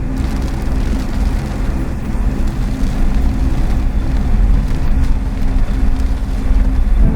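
Steady low rumble inside a car driving through a heavy thunderstorm: engine and road noise mixed with rain and storm noise, swelling slightly about two-thirds of the way through and again near the end.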